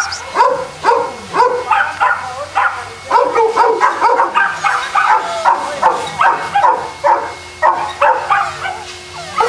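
Boston Terrier barking and yipping over and over, about two short barks a second.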